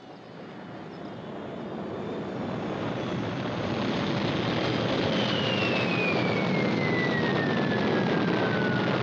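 Rocket launcher lifting off: a noisy exhaust roar builds over the first few seconds and then holds loud and steady. From about halfway a high whistle slides steadily down in pitch over the roar.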